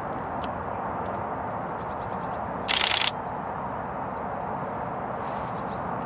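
Nikon D500 DSLR shutter firing in rapid continuous bursts of about ten frames a second, with a louder burst under half a second long about halfway through, over steady outdoor background noise.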